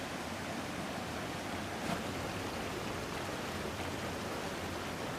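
Steady rushing of a flood-swollen river, an even noise with no letup.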